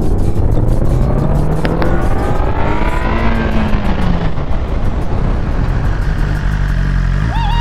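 Motorcycle engine accelerating, its pitch climbing for about three seconds before it eases off, under heavy low wind rumble on the rider's camera microphone.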